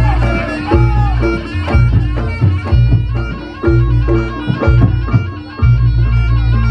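Reog Ponorogo gamelan music: a slompret shawm plays a wavering, reedy melody over repeated drum strokes and deep sustained gong tones.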